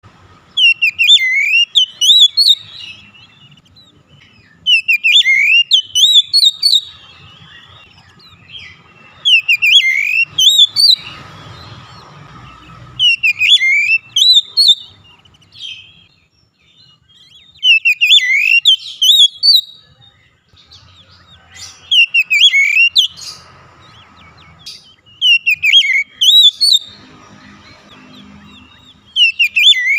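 Oriental magpie-robin (kacer) song: a short, loud phrase of whistled notes gliding up and down, repeated almost identically about every four seconds, eight times.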